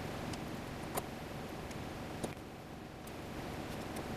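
Irregular light clicks of a hand screwdriver turning screws into an aluminum plate, the clearest about a second in, over a steady low background noise.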